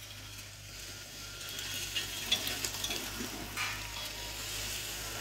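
Rubber tracks of an Action Trackchair pushing through tall grass and weeds, a crackling rustle of flattened stems with small snaps. It gets louder about two seconds in as the chair comes closer.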